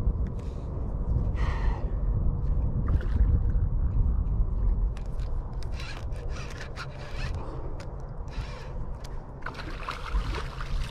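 A hooked striped bass splashing and thrashing at the water's surface while it is reeled in, in bursts, the last one about ten seconds in. Under it, a steady low rumble of wind on the microphone.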